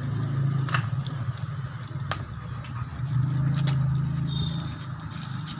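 A vehicle engine running nearby, a steady low hum that swells about three seconds in and then eases off, with a few sharp clicks.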